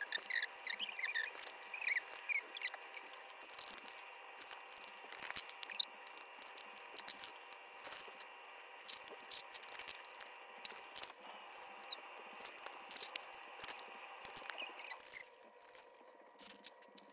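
Sped-up time-lapse sound of plastic toy blind packs being torn open and handled: rapid crackling and clicking, with a few brief squeaky chirps in the first few seconds. A steady hum runs underneath and drops away near the end.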